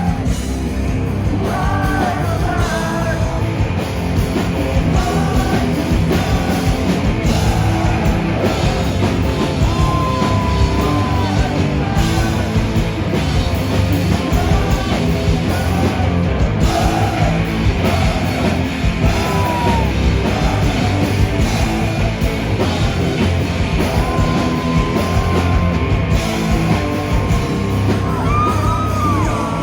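Loud live rock band playing, with a vocalist singing and yelling over guitars and drums; near the end the singer holds one long note.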